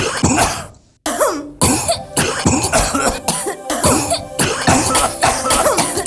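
Human coughs chopped and sequenced into a rhythmic beat over music, a song made of coughs. It breaks off briefly about a second in, then the cough beat runs on.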